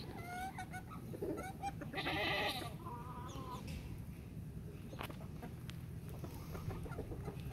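Farmyard hens clucking with short calls, and one loud, drawn-out wavering livestock call about two seconds in.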